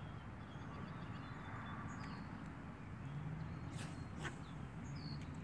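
Outdoor pond-side ambience: a steady low rumble, with short high bird chirps recurring every two to three seconds. A few sharp clicks come about four seconds in.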